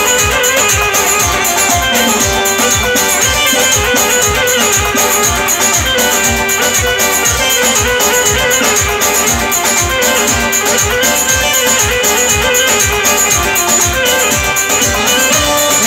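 Wedding band playing Turkish dance music: an instrumental passage without singing, over a steady, even drum beat with shaker-like percussion.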